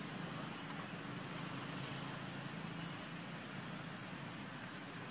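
Steady outdoor background noise: an even hiss with a constant high-pitched whine and a faint low hum underneath, unchanging throughout.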